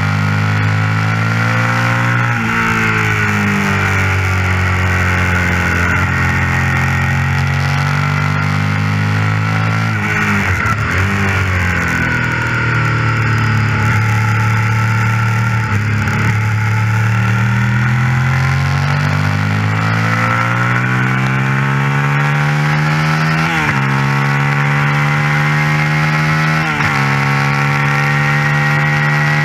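Suzuki SV 650 V-twin racing engine heard from on the bike, pulling hard with its pitch rising through the gears. It drops sharply at an upshift about two seconds in and again twice near the end. Around ten seconds in the revs fall and waver as the rider brakes and downshifts for a corner.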